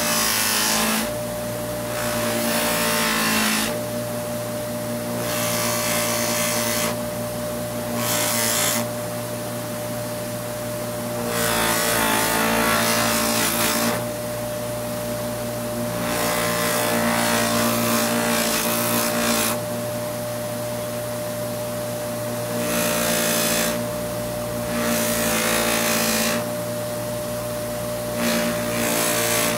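Bench buffer motor running with a steady hum, while a carved wooden slingshot fork with a CA (superglue) finish is held lightly against its spinning loose-leaf buffing wheel to polish the finish. There are about nine passes of one to three seconds each, and each one adds a loud brushing rush over the hum.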